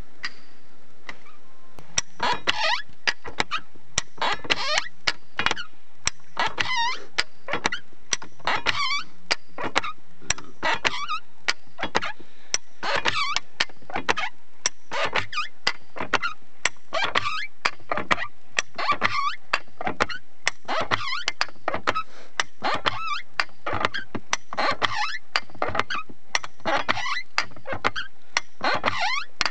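Trewhella monkey grubber hand winch being worked by its lever: the cast-iron ratchet and gears clack in a steady rhythm of about two sharp metallic clicks a second, each with a brief ring. The clicking starts about two seconds in.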